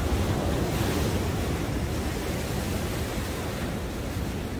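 Heavy sea waves breaking against concrete tetrapods and rocks, a crash about a second in, then white water rushing and foaming over the rocks.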